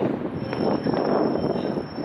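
Fireworks launched from the Taipei 101 skyscraper, heard from far off as a continuous crackling rumble of many bursts running together.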